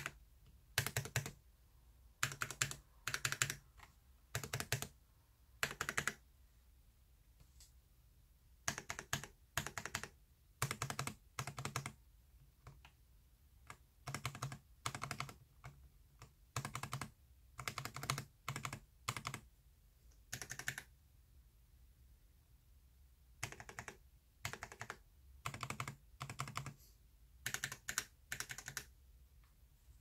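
Stabilized long keys on a hand-wired split mechanical keyboard in an acrylic case, fitted with ZealPC transparent stabilizers, pressed and released again and again. They make short groups of sharp clacks with brief pauses between, as the stabilizers are tested.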